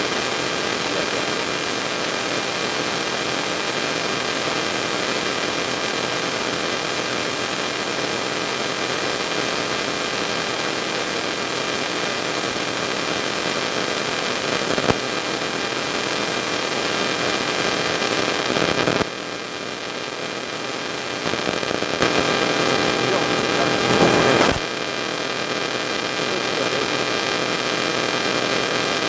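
Steady hiss with a faint electrical mains hum, no speech. The hiss changes character for a few seconds about two-thirds of the way through, then settles back.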